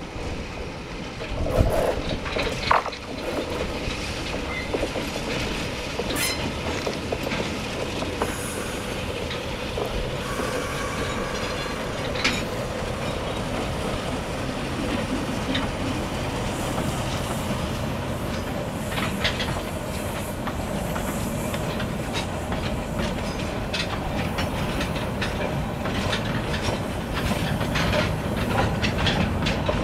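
Freight train of flat wagons behind a diesel locomotive rolling over a stone arch bridge: a steady rumble of wheels on rail with many clicks from the wheels over the rail joints and occasional brief wheel squeal. Two louder knocks come about two and three seconds in.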